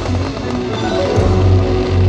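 Fireworks-show soundtrack music played over loudspeakers, with a heavy bass that swells about a second in.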